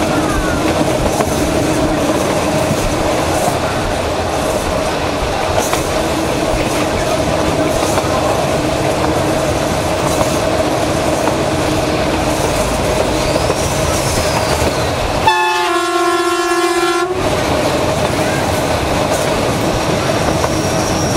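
Metre-gauge train running steadily, heard from inside a carriage, with the rolling rumble and clatter of the wheels and a steady drone. About fifteen seconds in, the DFH21 diesel locomotive's horn sounds once for about two seconds.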